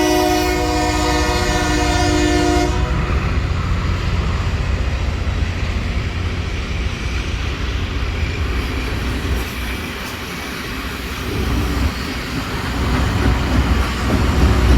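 Diesel locomotive air horn sounding a chord, cutting off about three seconds in, followed by the low rumble of a passing train, which dips briefly and grows louder again near the end.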